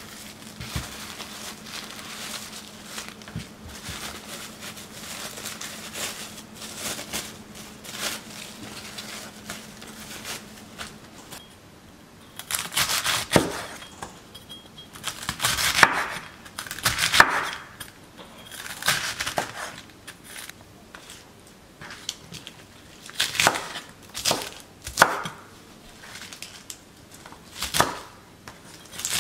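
Santoku knife cutting iceberg lettuce on a wooden chopping board: crisp cuts ending in knocks of the blade on the board, in short irregular runs from about twelve seconds in, with fainter small handling sounds before.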